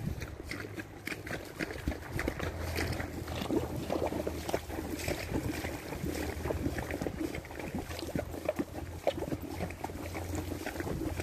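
A palomino mare walking through shallow water, her hooves splashing with each step.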